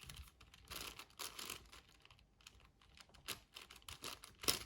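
6x6 Rubik's cube being turned by hand: faint, irregular clicking and rattling of the plastic layers as they are twisted, with a sharper click near the end.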